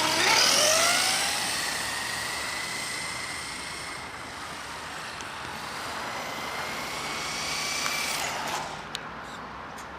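1/10-scale remote-control car's motor whining, rising in pitch at the start as it accelerates, then running at a steady high whine.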